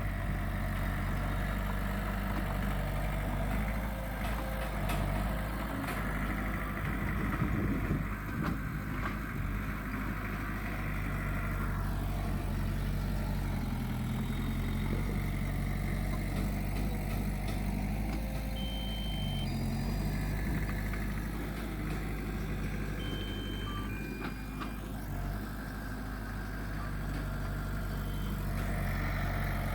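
Heavy diesel earthmoving machinery running steadily, with the engine note dipping briefly a couple of times. A couple of short, high beeps sound about two-thirds of the way through.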